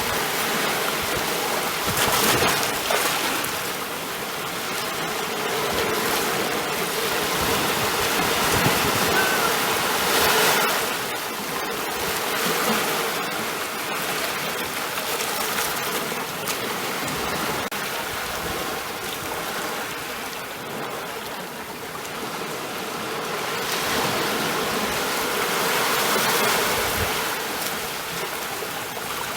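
Ocean waves breaking and washing in: a steady rush of surf that swells and eases every several seconds.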